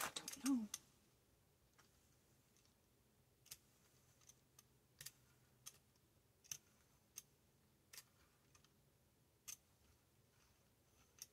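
A brief clatter as a rubber brayer is picked up, then faint, sharp clicks as the brayer is rolled back and forth through paint on a gelli plate.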